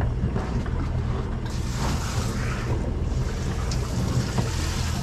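Outboard boat engines idling with a steady low rumble, with water and wind noise around the hulls. A broad hiss comes in about a second and a half in.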